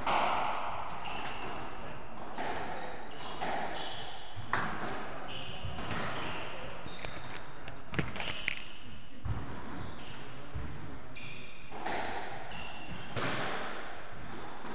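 Squash rally: the ball cracks off rackets and the court walls in irregular sharp hits, the loudest about four and a half and eight seconds in. Shoes squeak briefly on the wooden court floor in between.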